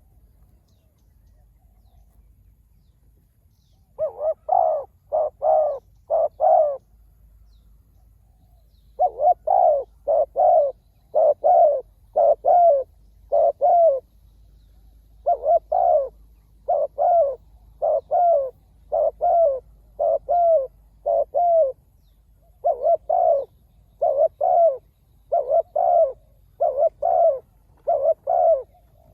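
Spotted dove cooing: runs of short, low coos, a first run of four about four seconds in, then longer runs of six to eight notes with brief pauses between.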